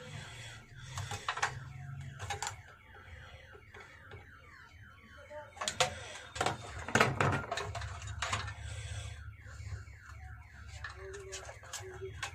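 Clicks and knocks of wires and parts being handled while a voltage stabilizer is wired up, a few louder knocks in the middle. Behind them, a short falling chirp repeats several times a second over a steady low hum.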